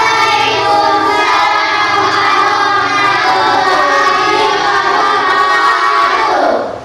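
A class of children answering the greeting in unison with a long, drawn-out, sing-song chant of 'Wa'alaikumussalam warahmatullahi wabarakatuh'. It fades out just before the end.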